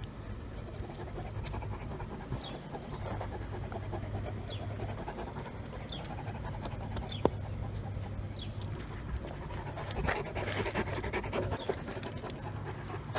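Blue Great Dane panting at close range, with one sharp click about halfway through.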